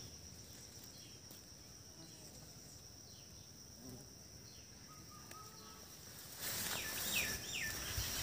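Faint garden ambience: a steady, high-pitched insect drone with a few faint bird chirps. About six seconds in, louder rustling of leaves and grass starts, and a short run of bird chirps comes with it.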